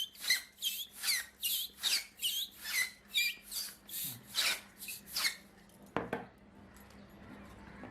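Rubber balloon squeaking as it is rubbed, a run of short gliding squeaks about two or three a second that stops about five seconds in, followed by a single sharp click about six seconds in.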